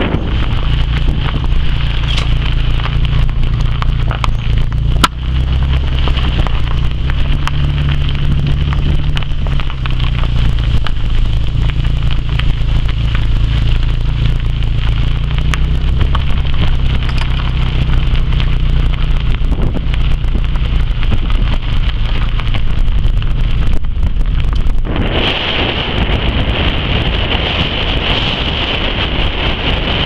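Wind buffeting the camera's microphone: a loud, low rumble with a steady high hiss above it. About 25 seconds in, the rumble gives way to a broader, even rushing noise.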